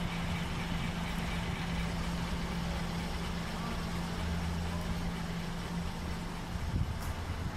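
Queensland Rail 1720 class diesel-electric locomotive idling at a standstill: a steady low engine hum and rumble, with the hum dropping away near the end.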